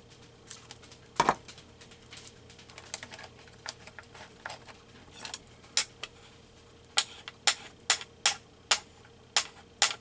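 Small craft scissors snipping paper: a series of sharp metal clicks, scattered at first, then coming about twice a second over the last few seconds.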